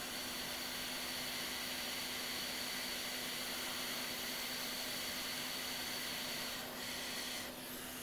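Hot air rework station blowing a steady hiss while it reflows a small chip onto a logic board, easing off near the end.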